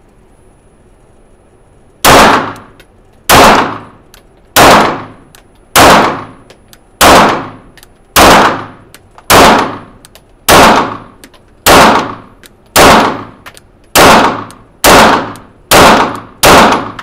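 Canik SFT METE Pro 9mm pistol fired about fourteen times, starting about two seconds in, at roughly one shot a second and quickening over the last few. Each shot rings on in the reverberant indoor range.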